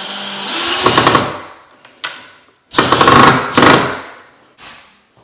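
A power drill driving screws in two short bursts, about a second in and again around three seconds in, the second one louder.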